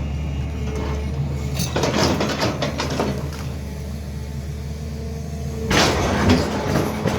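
SANY excavator's diesel engine running steadily, with two bursts of mechanical clatter, one about two seconds in and a louder one about six seconds in.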